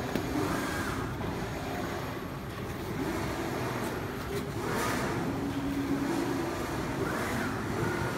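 Digital flatbed cutting machine running with a steady mechanical hum, with brief rising-and-falling swells of whirring about every two to three seconds.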